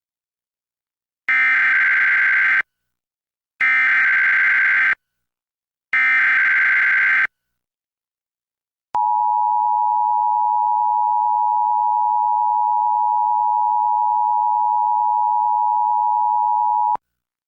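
Emergency Alert System header for a Required Monthly Test relayed on cable: three screechy digital data bursts, each a little over a second long and about a second apart, then the EAS attention signal, a steady two-tone alert tone held for about eight seconds and cut off sharply.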